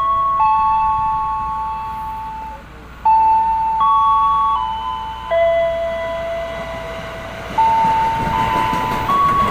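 Station loudspeaker chime playing a melody of long held electronic notes that step up and down. From about three-quarters of the way in, the rushing noise of a 205-series KRL electric commuter train pulling into the platform grows under it.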